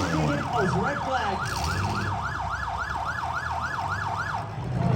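Electronic siren in a fast yelp: about four rising sweeps a second, repeating evenly, that stop about four seconds in.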